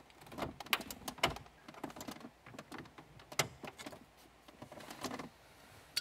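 Plastic dash trim bezel around the ignition lock being pried loose with a flat blade screwdriver and fingers: a string of irregular clicks and small scrapes as the clips give. The sharpest click comes a little past the middle.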